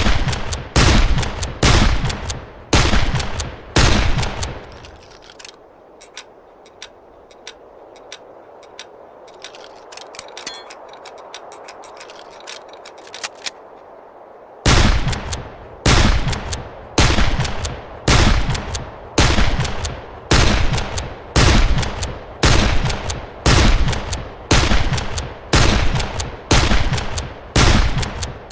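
Henry lever-action rifle fired in steady strings, about one shot a second. A pause of roughly ten seconds in the middle holds only faint clicks.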